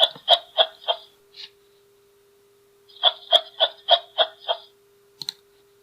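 Kangaroo vocalising in two runs of short clucking calls, about three or four a second; the second run starts about three seconds in.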